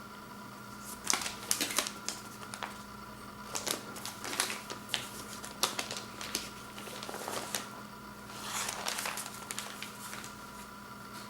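Hands handling a vinyl LP's cardboard jacket and paper sleeve: irregular clicks, taps and short paper rustles, over a faint steady hum.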